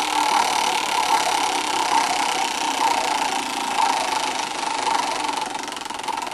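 Prize wheel spinning, its clicker flapper ticking very rapidly against the pegs in a dense rattle that fades toward the end as the wheel loses speed.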